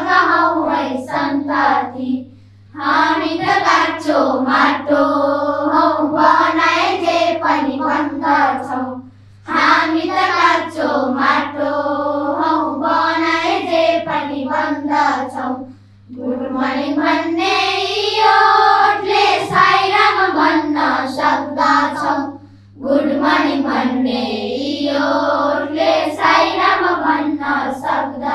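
A group of children singing together in long phrases of about six seconds, with brief pauses for breath between them.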